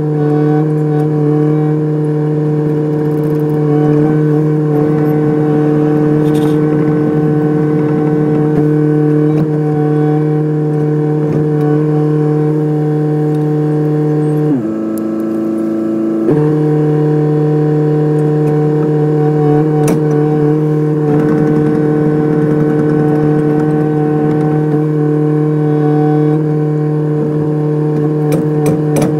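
Kubota excavator's diesel engine running steadily. About halfway through, its pitch sags for under two seconds, then comes back up.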